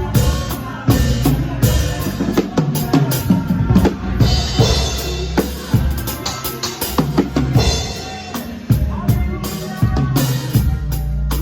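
Live band music with the drum kit to the fore: bass drum, snare and cymbals keep a steady beat over a bass line, with no singing.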